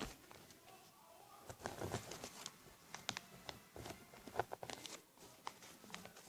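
A sheet of paper being folded over and over: faint rustling with short, sharp creasing crackles scattered through.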